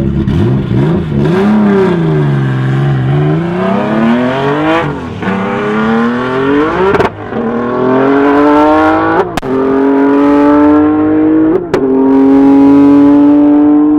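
Audi S2 Coupé with a turbocharged R32 engine launching from a standing start and accelerating hard through the gears. The revs are held, then rise and dip off the line. Four upshifts follow about every two seconds, each marked by a sharp crack and a drop in pitch before the engine note climbs again.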